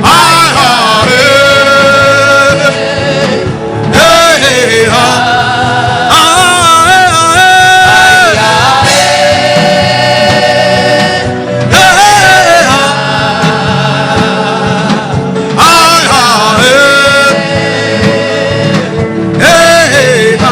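Gospel worship singing over an instrumental backing, in phrases a few seconds long with long held, wavering notes.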